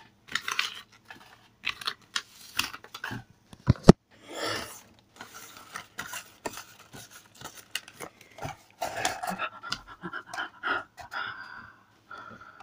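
Handling noise from a handheld phone: irregular clicks, knocks and rustles as the microphone rubs against clothing, with a single loud knock just before four seconds in, and some breathing.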